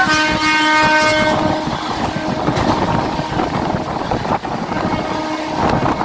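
Train horn sounding for about a second and a half, then the continuous rumble and rattle of the train running on the track, with a fainter tone near the end.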